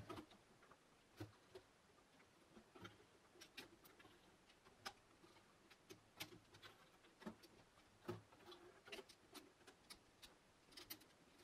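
Faint, irregular clicks and taps of plastic LEGO Technic pieces being handled and set into place on a LEGO rifle.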